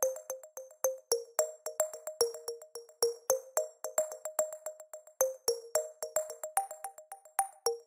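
Background music: short, plucked synthesizer notes repeating in a quick, even pattern with light clicking percussion.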